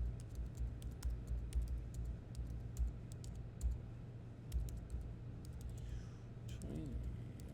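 Typing on a computer keyboard: irregular quick key clicks, in short runs and pauses.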